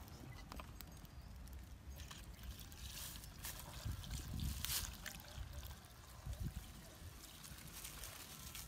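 Fuel poured from a plastic bottle through a funnel into a petrol earth auger's fuel tank: a faint trickle, with a few light clicks.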